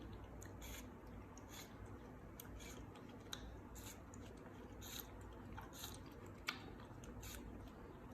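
A monkey eating: faint, irregular small clicks and smacks of chewing.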